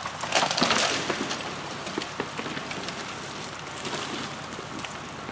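A heavy felled tree being dragged through brush by a tractor-mounted skidding winch, its branches crackling and snapping against the undergrowth, loudest in the first second, with scattered snaps after that. The tractor engine runs low and steady underneath.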